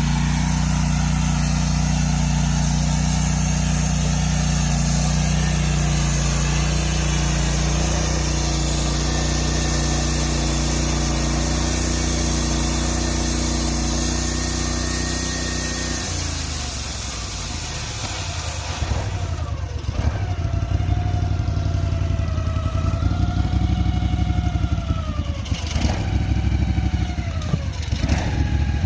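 Portable sawmill's engine running steadily. About halfway through its note changes, and rising and falling whines come in, with a couple of sharp knocks near the end.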